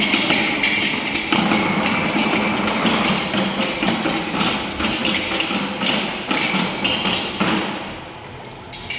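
Rapid, rhythmic percussive strikes on hard objects, beaten in the pattern of a dhak drumbeat; the beating drops away about seven and a half seconds in.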